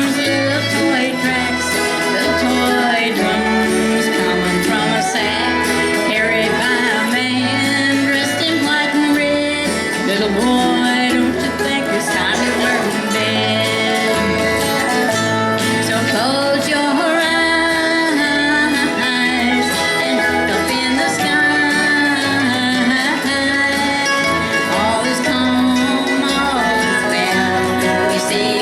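Live acoustic bluegrass band playing, with a steady bass line under guitar and other string instruments.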